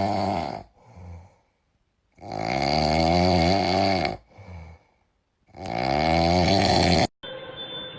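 Loud snoring: three long drawn-out snores, each followed by a shorter, softer breath, cutting off abruptly about seven seconds in.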